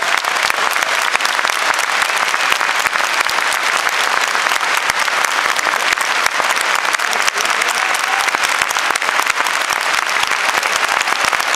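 Large football stadium crowd clapping and applauding: a dense, steady mass of handclaps.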